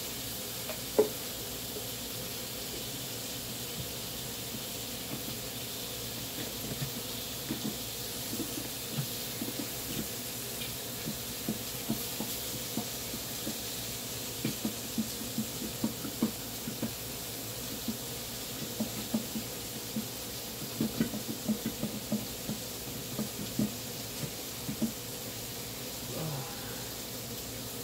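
A bottle of barbecue sauce being shaken and worked upside down to get the sauce out, with a sharp click about a second in and then many small irregular knocks and splats in clusters. A steady sizzle from chicken on the electric grill runs underneath.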